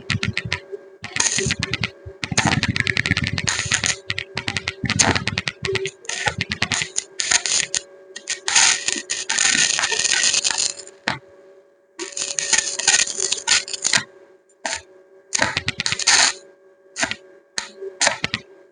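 Arc welding: the arc crackling and sizzling in short, stop-start bursts of one to three seconds, with a faint steady hum underneath.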